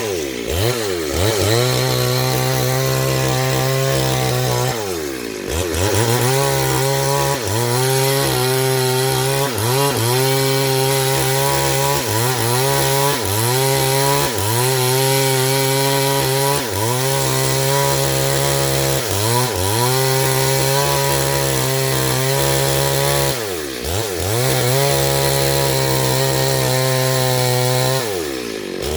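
Chainsaw running at high revs while cutting wood. Its engine pitch dips and recovers every couple of seconds as the chain is loaded in the cut.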